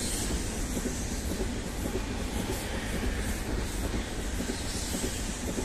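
TILO electric multiple-unit passenger train passing close by: a steady rush and rumble of wheels on rails, with faint scattered clicks.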